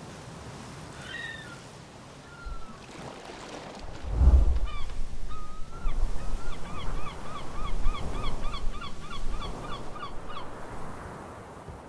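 A large bird calls, first with a few separate notes and then, from about six seconds in, a rapid run of short rising-and-falling notes, three or four a second, that stops about ten seconds in. A deep low boom comes about four seconds in.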